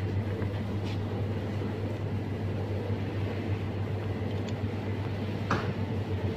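Steady low hum and background noise inside a shop, with a few brief rustles or knocks, the sharpest about five and a half seconds in.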